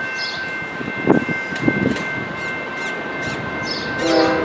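Passenger train standing at a station, its equipment giving a steady high-pitched whine, with a couple of knocks. A short pitched tone sounds near the end.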